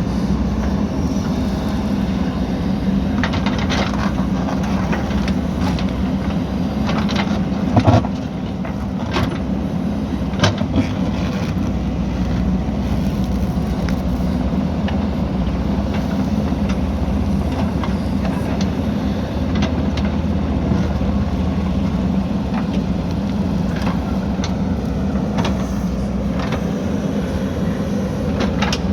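JCB backhoe loader's diesel engine running steadily under working load, with a few sharp knocks, the loudest about eight seconds in.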